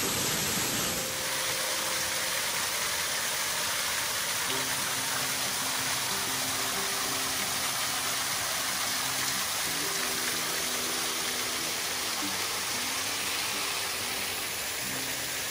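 Steady rush of a small waterfall pouring off a limestone ledge, heard from close behind the falling water. Soft background music with a simple melody comes in about four seconds in.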